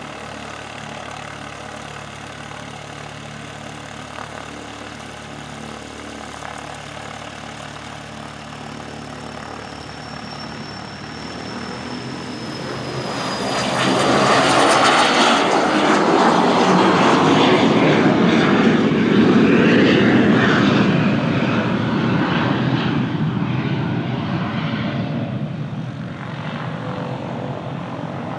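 Cessna Citation CJ3 business jet's twin Williams FJ44 turbofans at takeoff power. A steady engine sound with a faint high whine sliding down in pitch becomes a loud rush of jet noise about 13 seconds in, as the jet lifts off and passes. The noise then fades slowly as it climbs away.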